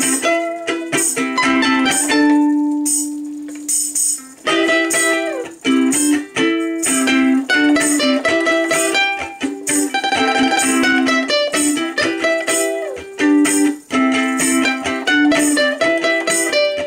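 Two ukuleles strumming and picking a rock riff. About two seconds in, one chord is left to ring and fade for a couple of seconds before the strumming starts again.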